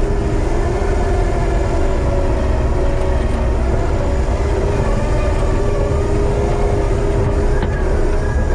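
Diesel engine of a Kubota compact track loader running steadily at working speed, its pitch rising and falling slightly as the machine works, with a heavy low rumble.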